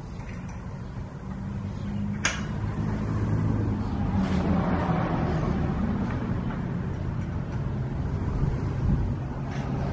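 Low, steady engine rumble like a motor vehicle running, growing louder about two seconds in and then holding. A few sharp metal clicks from wrench work on the steel yoke frame sit on top of it.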